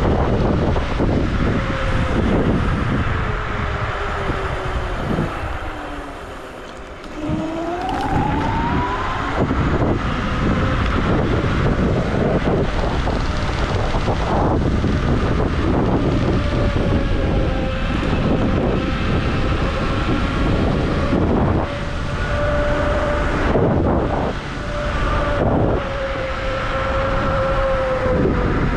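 Electric scooter's hub motors whining under heavy wind rush on the microphone. The whine falls and quietens as the scooter slows, about seven seconds in it rises sharply as it accelerates, then it holds a fairly steady pitch at cruising speed.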